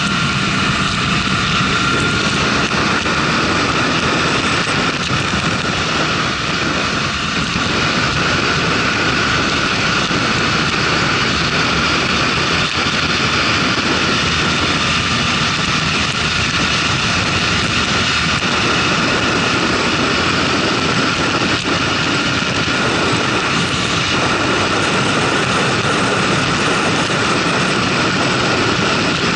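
Onboard sound of a motorcycle cruising at highway speed, around 80 to 100 km/h: a steady engine drone mixed with wind rush.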